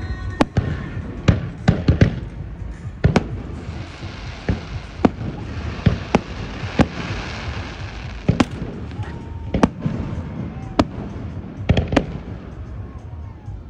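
Aerial firework shells bursting in a rapid, irregular series of sharp bangs, with a stretch of hissing crackle in the middle.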